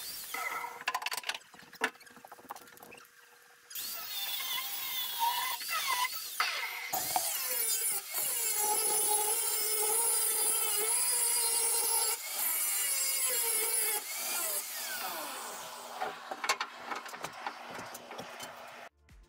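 Electric power tool working steel engine-bed parts: it runs and bites into the metal, its pitch dipping and recovering under load. It is quieter for a moment near the start and loudest, with a strong hiss, in the middle.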